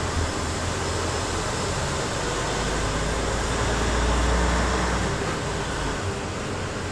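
Heavy vehicle engine running with a low rumble that grows louder about halfway through and then eases, over a steady noisy hiss.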